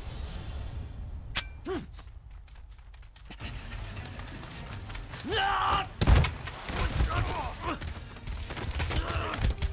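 Film fight-scene sound: punches and bodies hitting the ground as a series of sharp thuds and hits, with fighters' grunts and a loud yell about five seconds in, over a low rumble.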